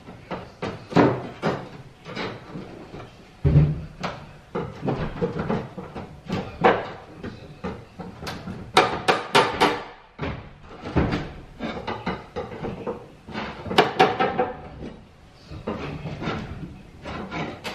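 Irregular knocking, banging and clattering, with one heavy low thump about three and a half seconds in.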